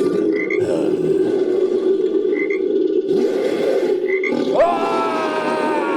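Creature sound effect made from frog croaking: a steady, dense chorus of croaks with short high chirps every second or two. About four and a half seconds in, a long drawn-out call with several overtones rises sharply and then slowly falls.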